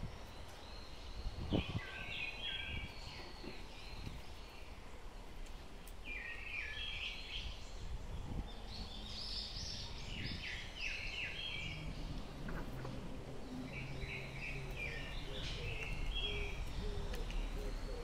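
A songbird singing short songs of quick, high notes, repeated every few seconds, over steady low outdoor background noise. A single sharp knock about one and a half seconds in.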